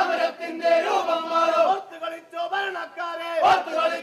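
A group of men shouting protest slogans together in loud, drawn-out calls.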